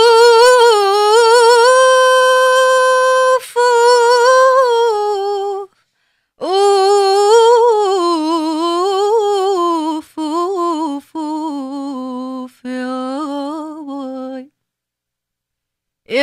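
A woman's soprano voice singing unaccompanied, an Arabic vocal introduction in long ornamented phrases with a wavering pitch. It begins on high held notes and descends lower in later phrases, with a short breath pause partway through, and stops shortly before the end.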